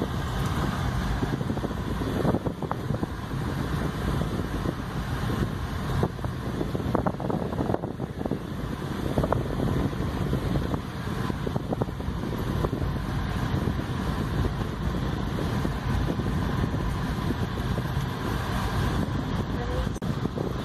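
Car driving along a road, heard from inside the cabin: a steady low engine and road rumble, with a few light knocks.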